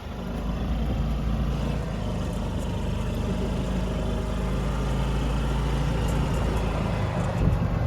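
Vehicle engine running steadily, a low even hum.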